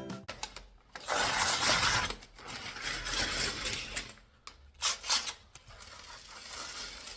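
Plastic LEGO pieces being handled: a stretch of rubbing and scraping, then a few sharp clicks about four to five and a half seconds in.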